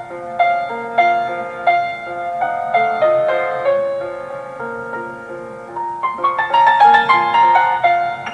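Piano playing a classical piece: a melody of struck, fading notes that quietens around the middle, then a quicker, louder run of notes near the end.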